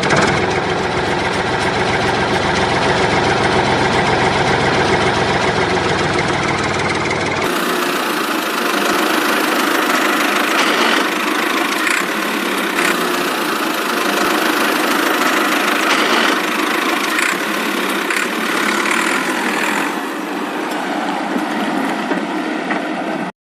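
An engine running steadily. About seven seconds in, the sound changes abruptly and loses its deep low end, as at a cut between recordings.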